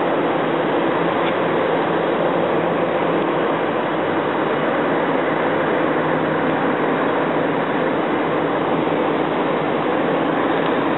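A distant excavator's diesel engine running steadily, heard as a constant rumble with a hiss over it and no changes in pace.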